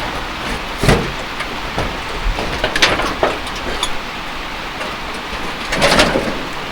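A flooded river rushing fast and full after heavy rain: a steady loud rush of water, swelling briefly a few times.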